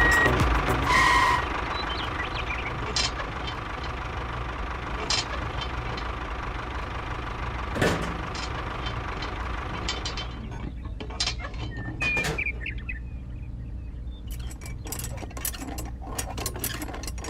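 An engine running steadily at a low idle, with a few sharp clicks and knocks scattered through it; a hiss over it drops away about ten seconds in.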